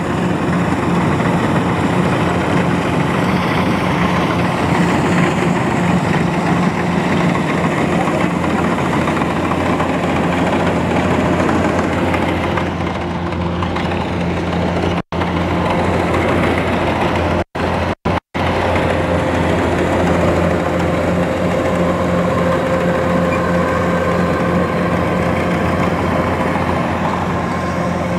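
Rice combine harvester's engine running steadily under load, a loud low hum. The sound drops out for an instant once about halfway through and twice more a couple of seconds later.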